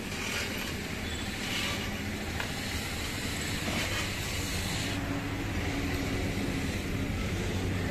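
Backhoe loader's diesel engine running steadily, with a hiss over it that stops about five seconds in.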